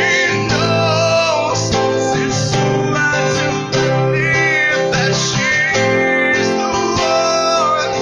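Acoustic guitar strumming with a man singing over it, a live acoustic song.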